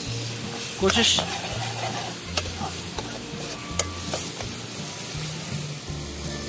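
Onion and turmeric gravy sizzling in a steel kadhai, stirred with a long steel ladle that clicks against the pan a few times.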